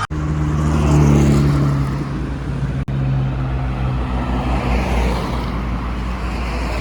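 Mercedes-Benz W211 car's engine running, rising in pitch under acceleration over the first second or so and then settling into a steady low drone, with a brief dropout about three seconds in.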